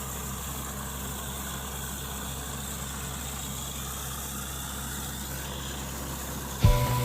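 Engine of a borewell drilling rig idling with a steady low hum. Near the end a much louder machine sound cuts in, with rhythmic knocks about twice a second.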